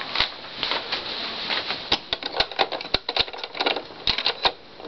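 Irregular run of sharp clicks and clacks from hands working the 1972 Bell & Howell 2398A cassette recorder's function selector knob and open cassette compartment, while the transport is checked after its drive belt was refitted.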